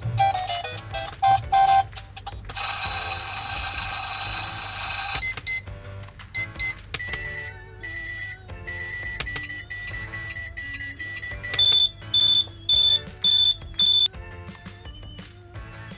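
Super Mario alarm clock toy playing electronic video-game tunes and sound effects through its small speaker. A loud, steady tone lasts about two and a half seconds early on, followed by a run of short beeps and then five louder beeps near the end.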